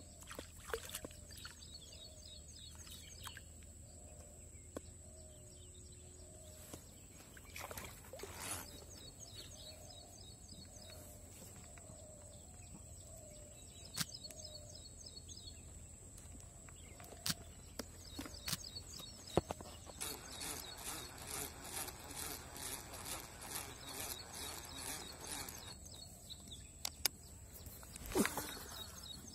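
Faint outdoor ambience on the water: birds calling, a steady high-pitched whine and scattered clicks. About twenty seconds in comes a stretch of rhythmic rattling that lasts several seconds.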